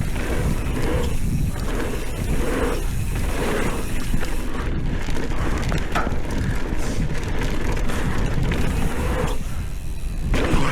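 Mountain bike riding down a dirt trail: a steady rush of wind noise with the tyres rumbling and the bike rattling over the ground.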